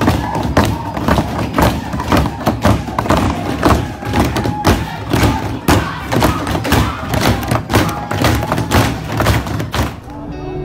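Hands slapping and pounding on wooden tables in a fast, uneven beat, a few strikes a second, with a group's voices mixed in; the pounding stops near the end.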